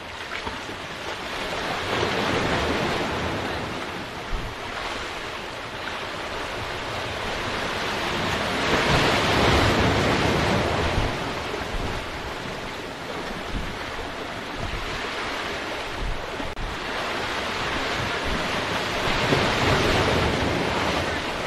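Ocean waves surging and breaking against the boulders of a rock jetty, the wash swelling loudest three times, with wind rumbling on the microphone.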